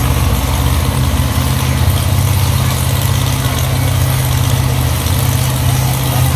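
Monster truck engine idling, a loud low, steady sound.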